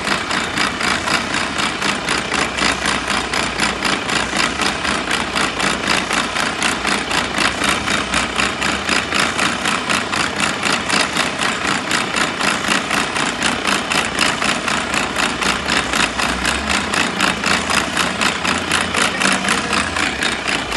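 Mercedes-Benz Arocs truck running at idle with an abnormal sound from its gearbox: a steady, even pulsing of about three beats a second over the engine's running.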